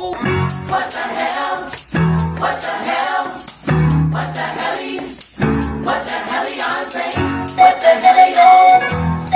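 Trap-style choir music: a choir singing over deep bass hits that land about every second and a half to two seconds, with fast rattling percussion. A repeated high melody line comes in near the end.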